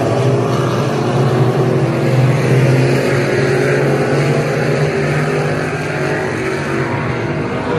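Dirt-track street stock race car engines running steadily, a loud low drone that holds the same pitch and eases slightly near the end.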